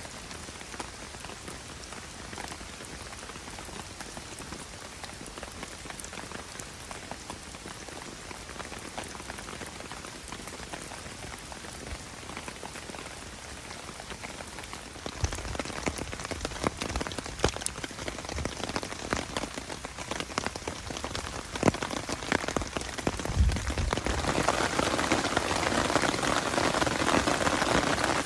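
Heavy rain pattering on a DD Tarp 3x3, a steady wash of sound scattered with sharp drop hits. The downpour grows louder about halfway through and heavier again near the end.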